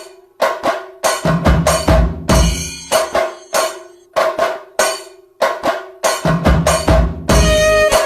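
Background music driven by percussion: a rhythm of sharp drum strikes over a held melodic tone, with deep bass drum hits swelling in twice.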